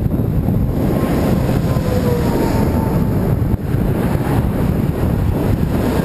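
Heavy wind rush buffeting the microphone of a camera mounted on a moving bicycle, loud and steady. A faint whine falls slightly in pitch from about one to three seconds in.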